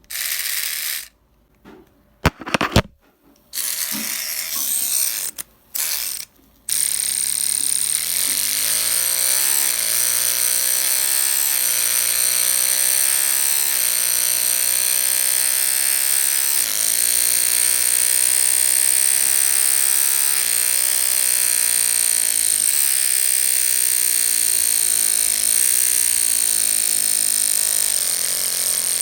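Electric toothbrush buzzing, switched on and off in short bursts for the first several seconds, then running without a break. Under a steady high whine its pitch keeps rising and dropping back every two to three seconds, imitating a car engine revving up through its gears.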